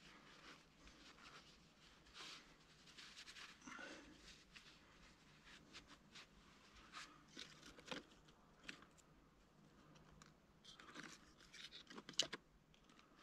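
Quiet rustling and small clicks of things being handled, with a sharp click about twelve seconds in.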